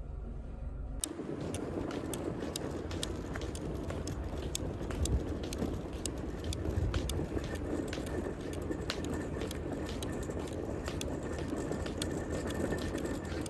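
Steady road and engine noise inside a moving car's cabin, with scattered light clicks and ticks.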